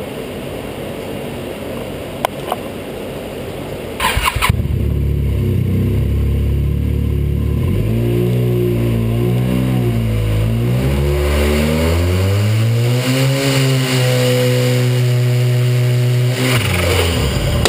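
Arctic Cat 1100 turbo snowmobile engine, a three-cylinder four-stroke, cranking and catching about four seconds in. It idles, then is revved up and down several times and held at a higher speed. A rush of hiss follows near the end.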